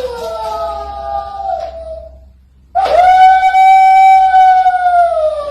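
A dog howling: one long howl that slowly falls in pitch, a brief pause, then a louder, longer howl that holds its pitch and drops away near the end.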